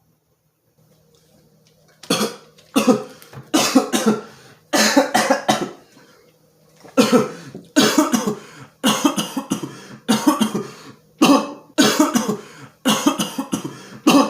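A person coughing hard in a long fit: a run of harsh coughs starting about two seconds in, a short break, then a second, longer run. The cougher puts it down to choking while drinking water.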